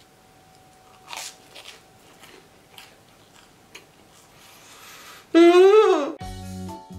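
Faint bites and chewing of bread, then about five seconds in a loud, short horn-like note that slides up and back down, like a saxophone sound effect. Music with a steady beat starts just before the end.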